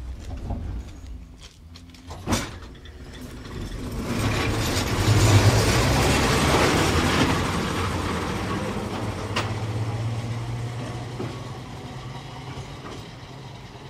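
A train pulling away from the terminus: a sharp click about two seconds in, then a low hum and wheel noise swell to a peak after about five seconds and slowly fade as it moves off.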